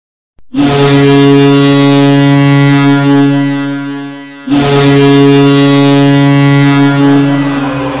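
Hockey arena goal horn of HC RT Torax Poruba sounding two long, low blasts, each about three seconds. The first fades out and the second starts straight after it.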